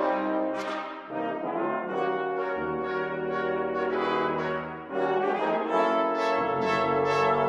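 Brass ensemble of trumpets, horns, trombones and tuba playing held chords, with a deep bass line coming in under them twice and short, separated notes in the upper parts in the second half.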